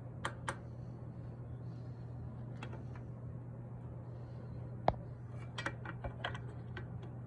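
Scattered light metallic clicks and taps of metal parts being handled during welding setup, one sharper click about five seconds in, over a steady low electrical hum; no welding arc is heard.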